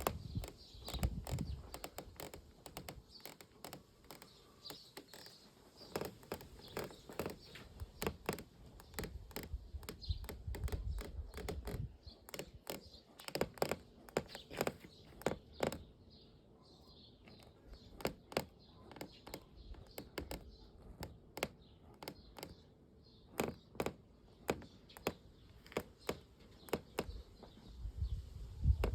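Interior trim of a Volkswagen Passat B8 squeaking and creaking inside the cabin: many irregular sharp clicks and ticks, thicker in some stretches, over a few spells of low rumble. The rattles are a sign of poor interior build quality.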